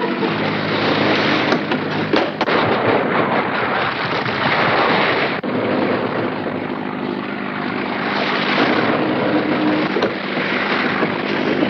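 Boat engine's steady drone under a rushing noise of wind and rough water that swells and eases, as a boat pitches in heavy seas, with a few knocks about two seconds in.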